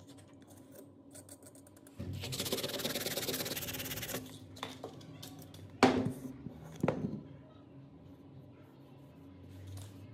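A utility knife blade scraping and rasping over a hardened super glue and baking soda filler in pine, light scratches first, then about two seconds of fast, dense rasping as the patch is shaved flush. Two sharp knocks follow about a second apart, the loudest sounds.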